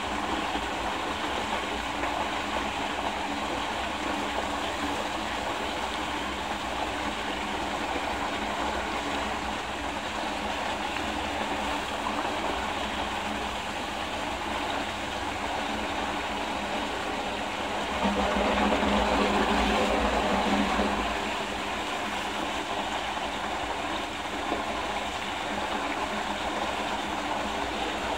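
Water rushing and swirling down a whirlpool vortex into a drain hole, a steady rushing noise that grows louder for about three seconds about two-thirds of the way through.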